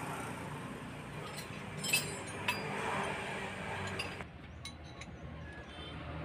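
Light metallic clinks from a long 14 mm socket wrench working loose the lower nut of a car's right engine mount. A handful of short, irregular clinks.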